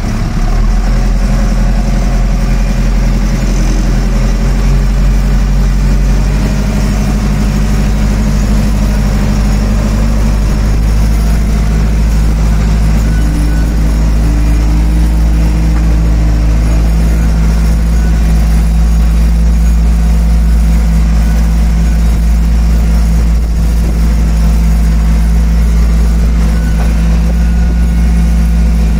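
Ursus 1014 tractor's turbocharged diesel engine running steadily, heard close up from the driver's seat, its note shifting slightly a few times.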